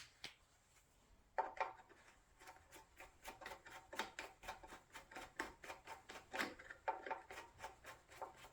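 A quick run of light metallic clicks, several a second, with a faint ring, starting about a second and a half in: small metal tools being handled.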